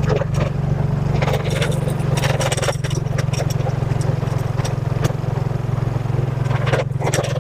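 Motorcycle engine running at a steady pace while riding, with frequent sharp clicks and knocks from the rough, unfinished road surface under the bike.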